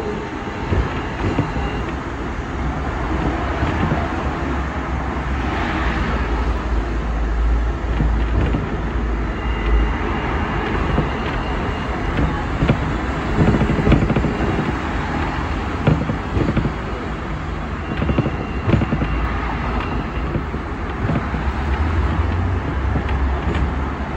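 Hong Kong double-decker electric tram, seventh-generation 'hi-tech' car No. 174, running along its track as heard from on board at the rear: a steady rumble of wheels on the rails, with road traffic passing alongside. A faint high whine comes and goes a few times.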